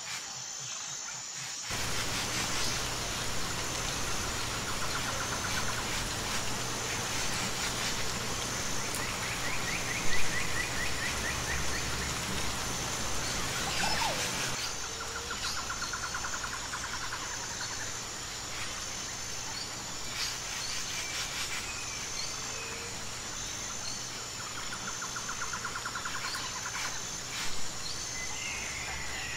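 Outdoor nature ambience: birds trilling and chirping over a steady insect chorus, with a high insect note pulsing about once a second. A single sharp click about a third of the way through is the loudest sound.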